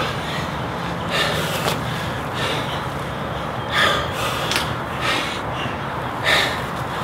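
A person breathing hard through strenuous exercise: short, sharp exhalations and gasps at irregular intervals, about one a second.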